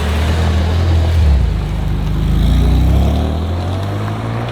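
Loud, deep car engine revving, its pitch rising and falling.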